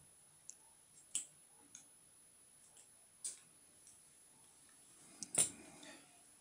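Surgical scissors snipping through a pit bull's ear along a cropping clamp: about half a dozen short, sharp clicks at uneven intervals, the loudest about five seconds in.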